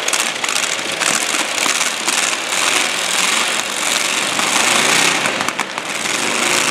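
Demolition derby cars' engines running hard, with a few crunching knocks as the cars ram one another.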